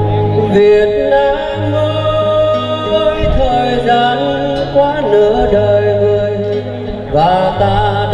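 Music: the instrumental introduction of a slow song, held bass notes under a wavering lead melody that slides up in pitch near the end.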